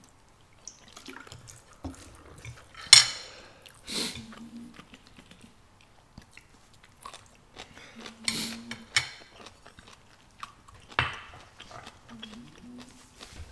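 Close-up eating sounds of wide noodles in a spicy red sauce: chewing, with scattered sharp clicks and smacks, the loudest about three and four seconds in and again near eleven seconds. There are a few short hummed "mm" sounds.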